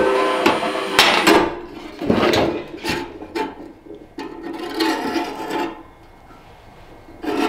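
A few sharp metal knocks as the ammo-can stove is handled, then several scraping strokes as the sheet-metal air-valve disc on the stove door is turned against the door.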